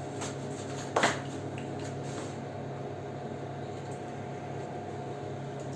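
Steady hum of a microwave oven running while it bakes a pizza, with one sharp knock about a second in and a few faint clicks.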